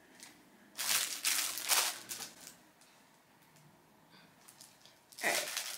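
Plastic packaging crinkling in short bursts as baby clothes are handled, over the first couple of seconds and again near the end.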